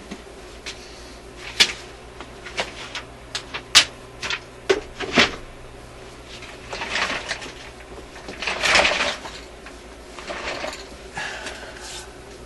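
Handling noises on a workbench: a run of sharp clicks and knocks, then three longer stretches of rustling or scraping, over a faint steady hum.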